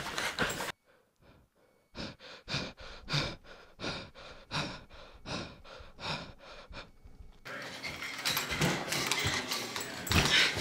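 Rapid panting, short breaths at about three a second, after a brief near-silent gap; near the end it gives way to a stretch of steady rushing noise.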